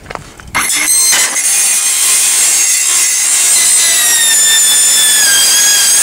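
Ryobi circular saw cutting through a corrugated sheet-metal roofing panel. It makes a loud, high-pitched screeching whine that starts about half a second in, and the whine sinks slightly in pitch as the cut goes on.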